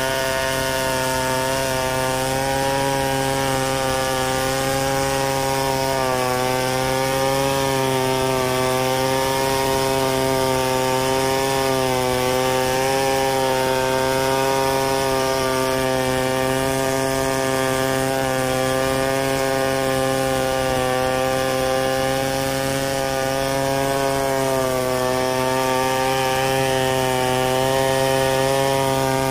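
Stihl 070 chainsaw, a big two-stroke, running steadily under load as it rips lengthwise along a log in freehand milling. Its pitch dips and recovers slightly a few times as the cut loads it.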